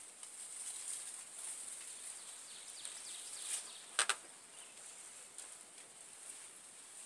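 Faint outdoor background with a steady high hiss, and two quick sharp clicks about four seconds in.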